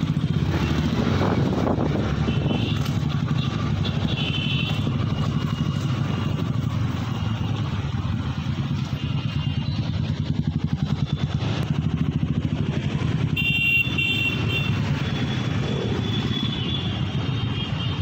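Motorcycle engines running as a group of bikes rolls slowly along. The nearest engine gives a steady low, pulsing note.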